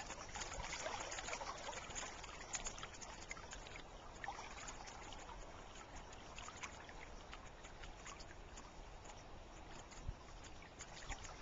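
Shallow river water trickling and lapping faintly over gravel at the shore, a steady soft wash with a few small ticks, slightly fuller for the first couple of seconds. A soft bump near the end.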